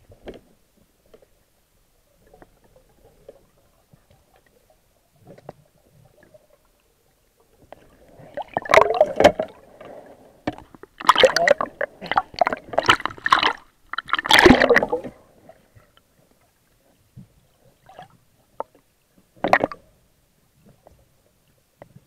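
Water gurgling and splashing around an underwater camera as a diver surfaces, in several loud rushing bursts over a few seconds past the middle and one short burst near the end.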